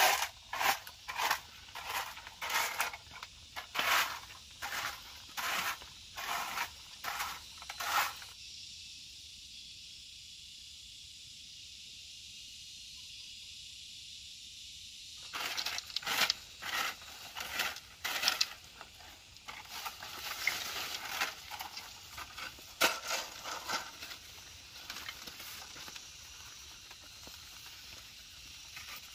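A hand garden tool scraping and crunching through dry ground and debris in repeated strokes, about two a second. The strokes stop for several seconds, leaving only a faint hiss, then start again more unevenly.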